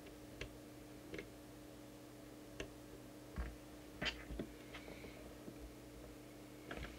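Faint scattered clicks and taps from handling the open CB radio chassis and its circuit board during transmitter alignment, the loudest about four seconds in, over a steady low hum.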